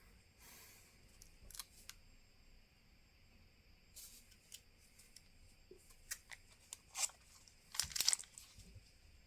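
Scattered small clicks, taps and light scrapes of hands and tools handling a disassembled smartphone and its small parts on a workbench, with the loudest cluster of sharp clicks near the end.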